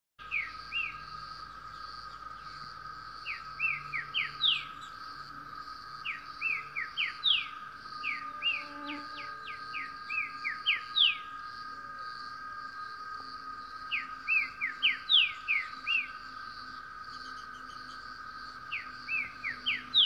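Green-winged saltator (trinca-ferro) singing: short phrases of quick, falling whistled notes, a new phrase every few seconds. A steady insect drone runs underneath.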